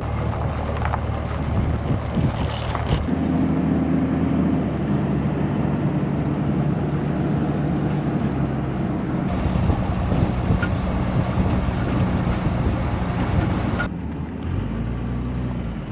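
A motor vehicle driving along the road: a steady engine hum whose low tones shift to new pitches a few times, over continuous road and wind noise.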